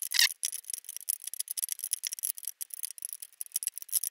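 Hot oil in a mini deep fat fryer crackling and sizzling with a dense, rapid, fine crackle as it heats up toward 190 °C for the second fry. A brief knock comes just at the start.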